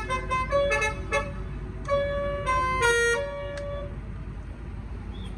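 Basuri telolet multi-tone air horn playing a string of short toots at changing pitches, then a few longer held notes, stopping about four seconds in.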